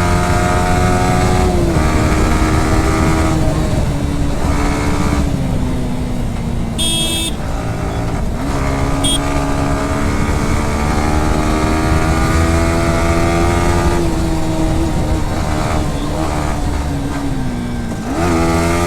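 Motorcycle engine running while riding, its pitch falling and rising with the throttle, with a quick rise near the end. A short high-pitched beep sounds about seven seconds in.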